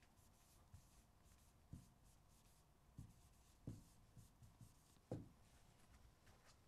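Very faint scratching and soft tapping of a pen writing on an interactive whiteboard screen, with a few light knocks as it strikes the surface.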